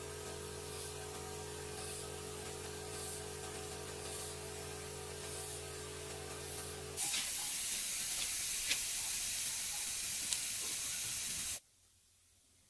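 Air-fed gravity-cup spray gun hissing as it sprays finish onto wooden wall planks, over a steady hum. About seven seconds in the hiss becomes much louder, then it cuts off suddenly near the end.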